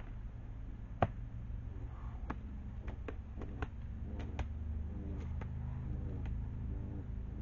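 A skunk stamping its feet and growling off camera, a defensive warning display: a string of separate dull thumps, with a growl through the second half, over a steady low hum.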